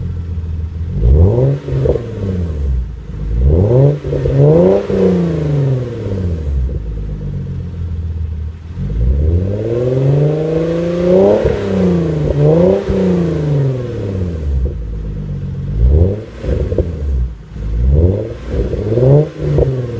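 Hyundai Genesis Coupe with an Ark Performance Grip aftermarket exhaust being free-revved while standing still: the engine note climbs and falls in a string of short blips, with one longer, higher rev around the middle.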